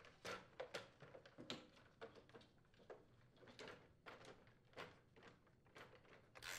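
Faint scattered clicks and light knocks of a plastic snowblower chute control housing being handled and seated in the console.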